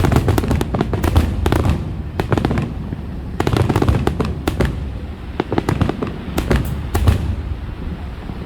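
Fireworks finale: rapid volleys of bangs and crackles over a low rumble, coming in three heavy waves and thinning out near the end.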